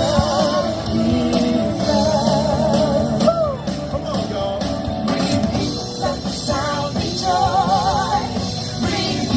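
Music with singing: a sung melody held with a wavering vibrato over an instrumental backing.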